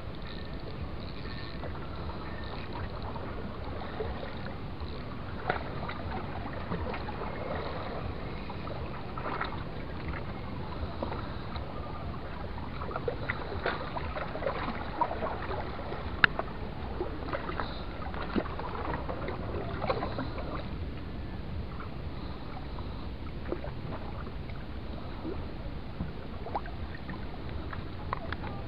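Sea water lapping under a steady low rumble, with scattered splashes and sharp clicks through the middle as a hooked fish thrashes at the surface.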